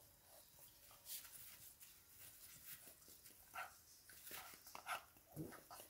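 Faint scuffling and snuffling of two English bulldog puppies rummaging among their toys, with a few short, sharper sounds in the second half.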